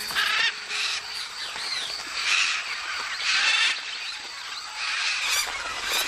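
Macaws and other parrots squawking: five or so loud, harsh calls over a steady chatter of thinner bird calls.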